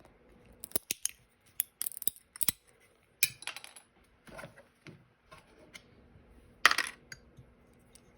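Small clicks, taps and clinks of plastic and diecast metal model-truck parts being handled and pried apart, with a louder clatter about six and a half seconds in.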